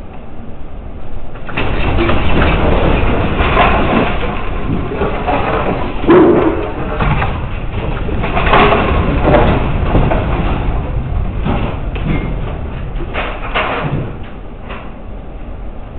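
A building shaking in an earthquake: a deep rumble with the rattling and clattering of fixtures and fittings, starting about a second and a half in, loudest around six and nine seconds, and easing off near the end.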